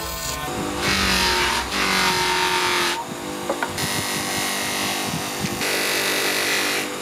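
Electric bench grinder running steadily while a small steel knife blade is pressed against the spinning grinding wheel. The blade grinds with a hissing sound in two long spells, from about a second in and again around the fourth to fifth second.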